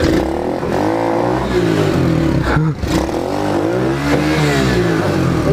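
A pit bike's small single-cylinder engine revved hard twice, its pitch rising and falling each time, under load as the bike is ridden up a flight of stairs.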